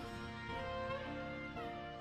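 Background music: a slow melody of held notes.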